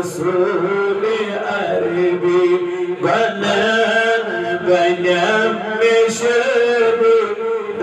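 A man's voice chanting a devotional Islamic recitation in long, drawn-out melodic notes, with a new phrase starting about three seconds in.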